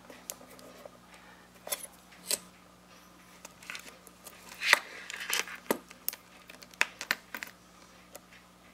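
Scattered small metallic clicks and scrapes as a thin steel lever is worked against the snap-on case back of a stainless steel wristwatch and the watch on its bracelet is shifted about; the loudest, sharpest click comes about halfway through.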